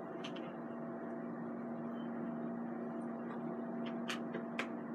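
Steady electrical hum over a faint even hiss, with a few light clicks and taps as chicken wings are handled in a plastic breader bowl.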